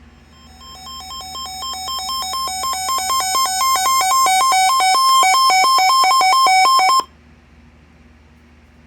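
Electronic emergency-alert tone: two pitches alternating rapidly, growing louder over the first few seconds, then cutting off abruptly about seven seconds in.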